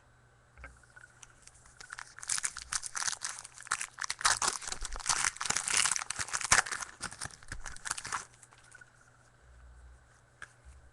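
Crinkling and tearing of a trading-card pack wrapper, a dense run of crackles lasting about six seconds and starting about two seconds in.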